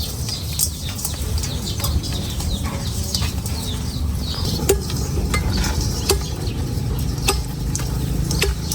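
A metal utensil stirring, clinking and scraping in a cooking pan, with scattered sharp clicks over a steady low rumble.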